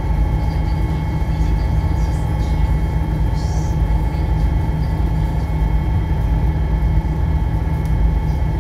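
Passenger ferry's engine running steadily at cruising speed: a loud, even low drone with a steady whine over it. The wake rushes past, with a few brief splashes of spray.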